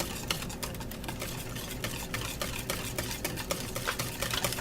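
A fork beating cream cheese in a metal bowl: quick, irregular clicking and scraping of metal on metal.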